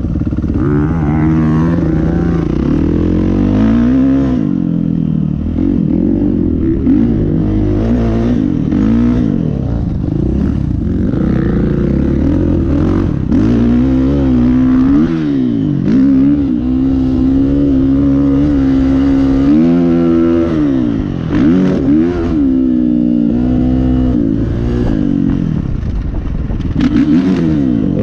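Kawasaki KX125 two-stroke dirt bike engine revving up and down again and again as it is ridden hard around a motocross track, shifting through the gears, heard from on board the bike.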